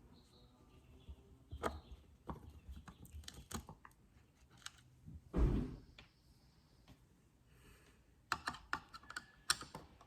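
Scattered small clicks and taps of a Phillips screwdriver and screws being worked out of a plastic shift-boot trim assembly, with one duller knock about five seconds in and a quick run of clicks near the end.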